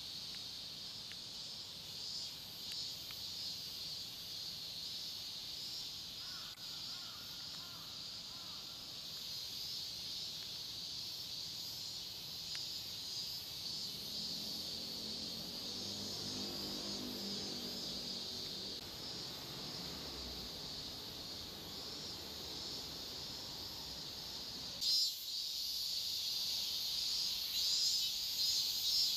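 Steady high-pitched chirring of an insect chorus outdoors, with a drawn-out lower pitched call in the middle and a short loud knock about 25 seconds in.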